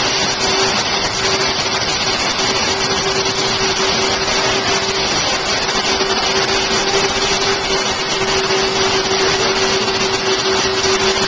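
Steady whir of electric blower motors running without a break, with a constant hum.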